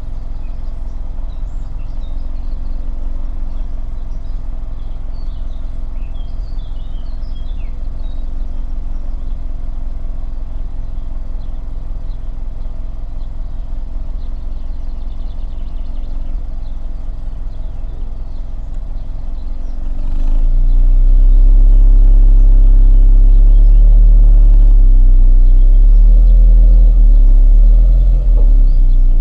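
VW Golf VI 1.2 TSI turbocharged four-cylinder petrol engine, heard at the exhaust pipe, idling steadily. About two-thirds of the way through it is revved up and held at higher revs, which waver up and down. Birds chirp faintly early on.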